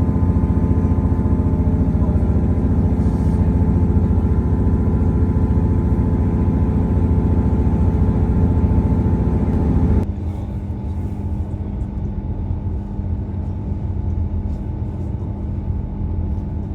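Diesel multiple-unit train's underfloor engine running steadily with a low, even hum. About ten seconds in the sound drops abruptly to a quieter, steadier running.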